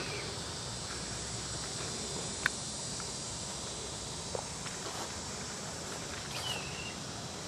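Outdoor summer ambience: a steady high insect buzz, with a few soft footsteps on grass and one short chirp near the end.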